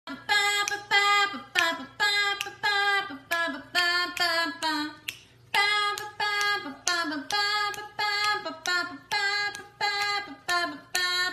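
Music: a sung melody in short, evenly paced notes, about two a second, with a brief pause about five seconds in.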